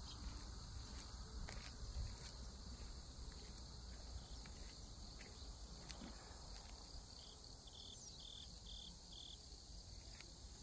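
Steady high-pitched chorus of insects, such as crickets, chirping. A run of five short, even notes comes about two-thirds of the way through, with faint footsteps and light clicks.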